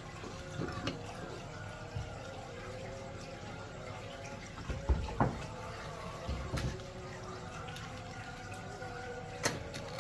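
Water running steadily from a kitchen tap into the sink, with a few sharp knocks as durians are handled, the loudest about five seconds in.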